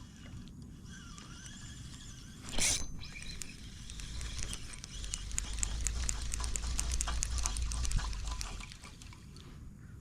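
Kayak getting under way on the water: a sharp splash-like burst about two and a half seconds in, then a low rumble with many small clicks from about four seconds until shortly before the end.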